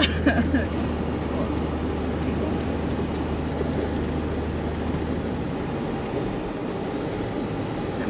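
Inside the cabin of an 80 Series Toyota Land Cruiser driving slowly on a dirt track: a steady mix of engine drone and tyre and road rumble. The low engine hum fades out about five and a half seconds in.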